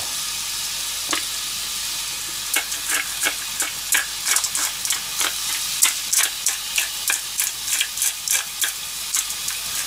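Ground meat sizzling steadily in a nonstick frying pan. From about two and a half seconds in, a hand-twisted pepper mill grinds pepper over it with rapid, irregular clicks.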